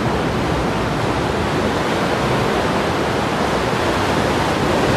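Steady rushing noise of ocean surf on the shore.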